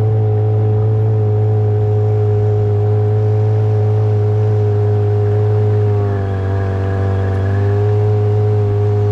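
Boat engine running steadily under way, a loud even drone with a strong low hum; its speed dips slightly about six seconds in, then steadies again.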